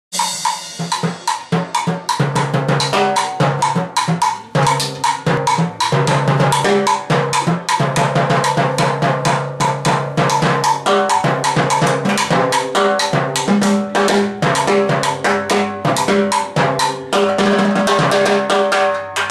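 Timbales played with sticks in a fast, continuous rhythm: rapid strikes on the heads, rims and shells, mixed with hits on the mounted cowbell and block.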